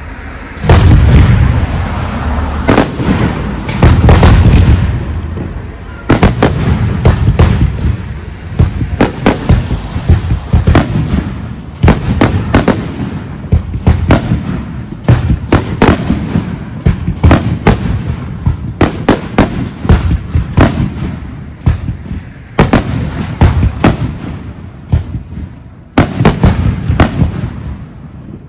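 Professional fireworks display with aerial shells bursting. Two heavy deep booms come in the first few seconds, then a rapid barrage of sharp bangs, several a second, runs to the end.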